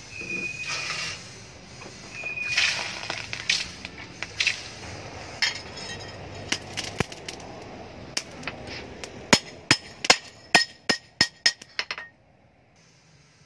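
Two short hisses of a hot steel knife blade being quenched in water, then a hand hammer tapping the blade on a steel anvil. The taps start scattered and end in a quick run of about ten ringing metal strikes, roughly four a second.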